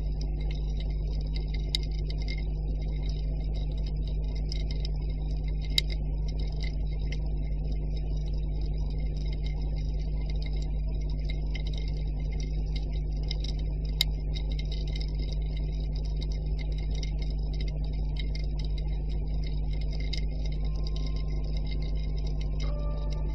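Underwater ambience: a steady low hum under a constant fine crackle of small ticks, with a few sharper clicks. Near the end a held tone comes in, followed by the first notes of mallet-percussion music.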